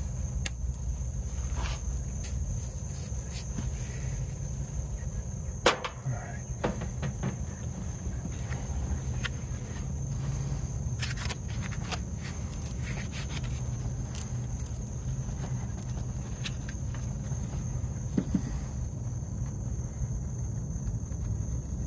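Insects chirring in one steady high note throughout, over a low rumble, with scattered clicks and small knocks of hands working the brass flare nut and a deburring tool on the copper line set; the sharpest click comes about six seconds in.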